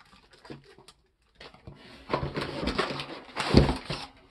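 Crumpled packing paper rustling and crackling as it is pulled out of a cardboard shipping box. It starts about a second and a half in and is loudest near the end.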